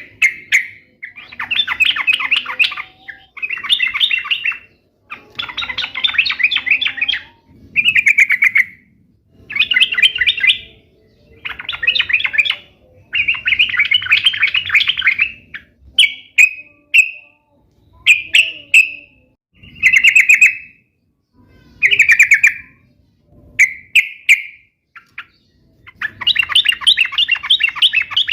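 Yellow-vented bulbul (trucuk) singing vigorously: loud, rapid chattering phrases a second or two long, repeated again and again with short pauses between them.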